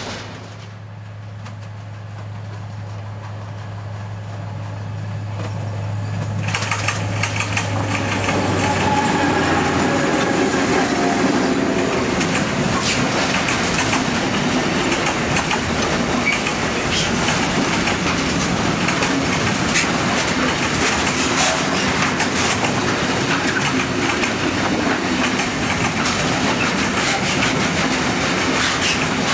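A diesel locomotive's engine hums steadily as it approaches, growing louder over the first several seconds. From about ten seconds in, loaded container wagons pass close by with a continuous wheel rumble and rapid rail clatter.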